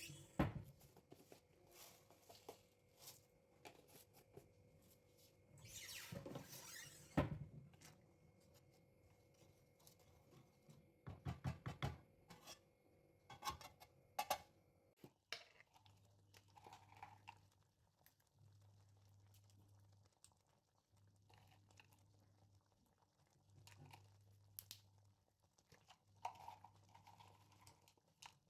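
Faint, scattered knocks and clicks of kitchen utensils, with a quick run of clicks near the middle. In the second half a low hum comes and goes in stretches of a second or two.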